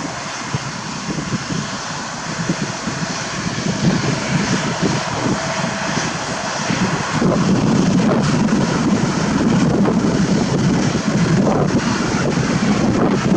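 Jet airliner engines at takeoff thrust, a loud rumbling noise that grows louder about seven seconds in.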